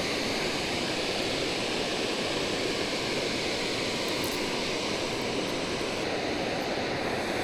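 Steady, even rush of water pouring over a dam spillway.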